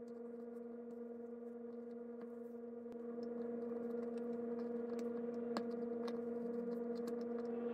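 A small craft knife whittles a wooden lure body, its blade giving faint, scattered clicks and scrapes as it takes off shavings. A steady electrical hum sits under it.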